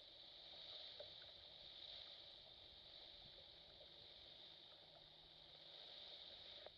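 Two-way radio receiving an open channel from a stuck transmit button: a faint, steady hiss that cuts off suddenly at the end as the transmission drops.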